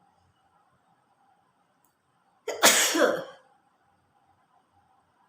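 A woman sneezes once, about halfway in: a sudden loud burst that trails off in a breathy release lasting about a second.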